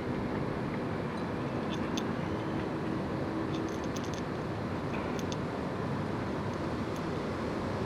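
Steady outdoor background noise with a few faint, short clicks scattered through it.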